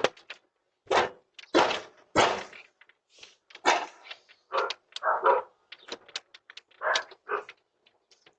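A dog barking repeatedly, in short single barks and quick pairs with gaps between them.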